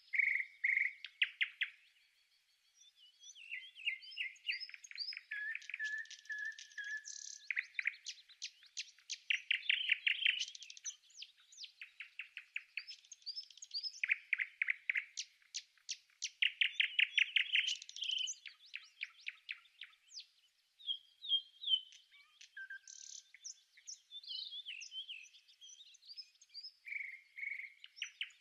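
Blue tit nestlings begging in a nest box: repeated bouts of rapid, high chirps, each about a second long, with scattered higher single notes between them.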